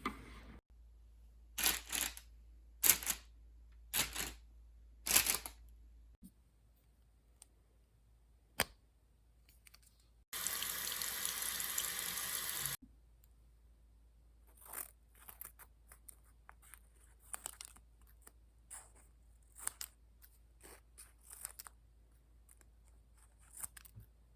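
Foley props being worked in a small room: four sharp hits about a second apart, a lone click, a steady rushing or tearing noise lasting over two seconds, then a scatter of small clicks and rustles.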